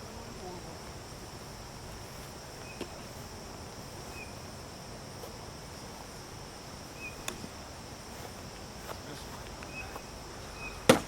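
Steady chorus of insects making an even high-pitched drone, with a few faint short chirps. One sharp knock comes near the end.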